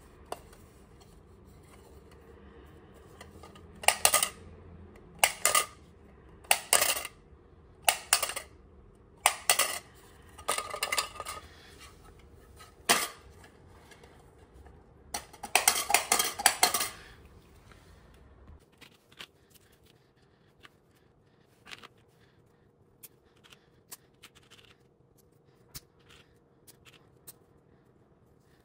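Plastic pop-up dice dome pressed again and again, the die clattering inside the clear bubble. There are about eight short rattling bursts, the last one longer. After them come faint light clicks of plastic game pieces being handled.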